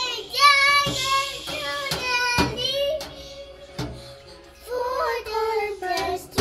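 A young girl singing in a high voice, with music playing along.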